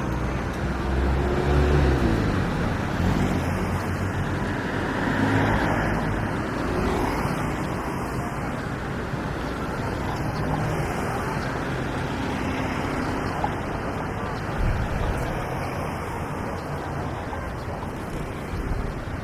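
Street traffic: a steady rush of road noise with vehicle engines running past. One engine passes close in the first couple of seconds, its pitch falling as it goes by.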